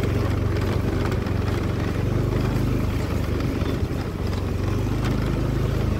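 Motorbike engine running steadily at low revs, with a constant low hum.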